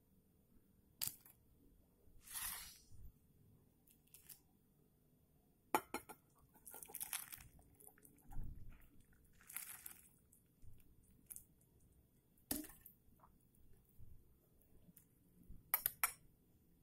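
Faint kitchen handling at a glass bowl: a few sharp clinks of a metal spoon against the glass, the last two close together near the end, with short hissing, splashy bursts between them as hot instant noodles and broth go into the bowl.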